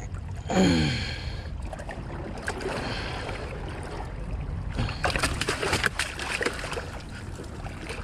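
Water lapping against shoreline rocks with wind on the microphone. A man's short falling exclamation about half a second in, and a cluster of clicks and rustling from handling gear around the middle.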